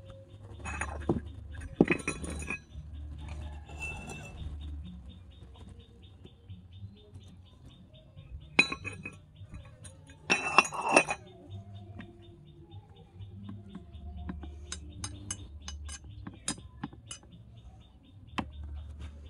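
Small metal spoon and cup clinking and scraping against a miniature iron wok as ingredients are added, in about five short bursts with the loudest near the middle. A run of quick sharp clicks follows, over a faint steady ticking.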